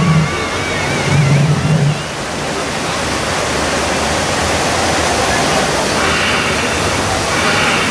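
Steady, loud rushing of falling water and spraying mist from the Rainforest Cafe volcano's waterfall and fog effects during an eruption. A wavering high tone sounds over it in the first two seconds.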